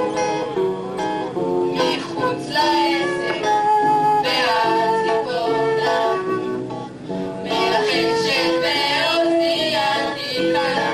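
Music: a guitar-backed song with melodic notes changing quickly.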